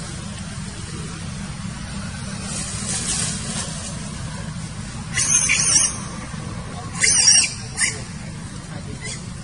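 Baby monkey giving high, wavering squeals: one about five seconds in, another about two seconds later, and a short one just after, over a steady low hum.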